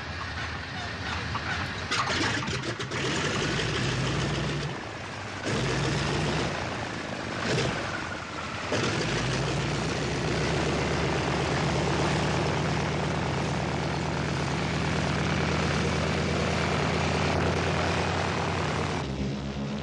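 Douglas DC-3's Wright Cyclone nine-cylinder radial engine starting up: uneven cranking with sharp irregular bangs as it fires about two seconds in, then settling from about nine seconds into a steady, even run.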